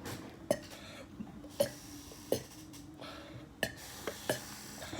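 A person's short throat sounds while forcing out a run of burps: about five brief, fairly quiet gulps, roughly a second apart.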